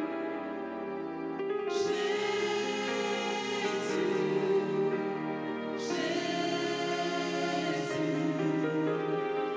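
Gospel choir singing a slow worship song with keyboard accompaniment, held chords moving every couple of seconds, with a bright shimmering wash about every two seconds.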